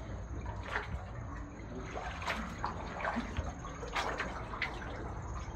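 Water sloshing and splashing around canoes moving through a narrow sea-cave tunnel, with a few sharper splashes now and then.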